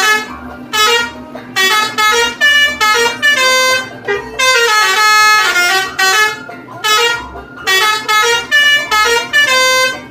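Indonesian bus 'telolet' multi-tone air horn playing its jingle, sounded again and again as short toots and longer phrases of several stepping notes, with brief gaps between them.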